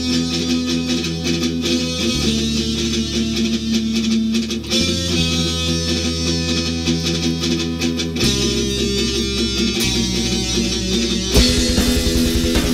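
Heavy metal music: distorted electric guitars and bass hold chords that change every couple of seconds. Near the end it switches to a fast, even, chugging rhythm.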